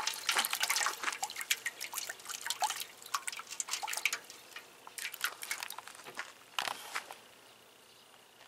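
Water splashing and dripping in a metal pot as a cat paws at a live crucian carp in it: a quick run of small splashes for the first few seconds, then a few separate splashes, dying away near the end.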